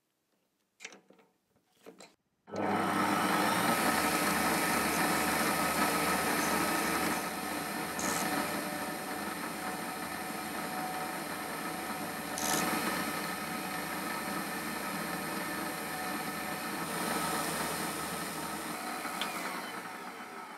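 A few light clicks, then an electric power tool starts about two and a half seconds in and runs steadily with a constant whine. It drops a little in level partway through and begins to die away near the end.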